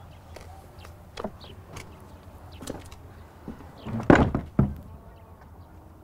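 Wooden courtyard gate banging: two heavy thuds about four seconds in, half a second apart, after a few light taps. Birds chirp faintly throughout.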